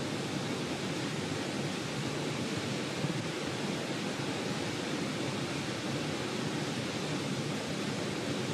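Steady, even rushing noise with no distinct events or tones.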